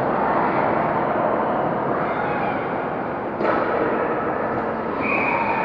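Ice hockey rink noise of skates and sticks on the ice. There is a sharp crack about three and a half seconds in, a shot or puck striking at the net as the goalie drops, and a referee's whistle starts a second or so before the end, held steady.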